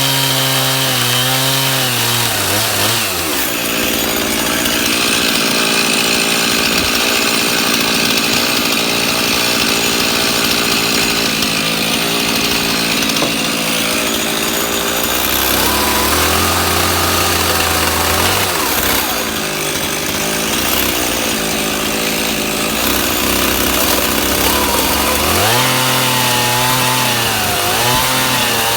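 A power tool working wood: its motor's pitch drops about two and a half seconds in as it bites into the wood, followed by a long rough cutting noise. Near the end the motor speeds back up.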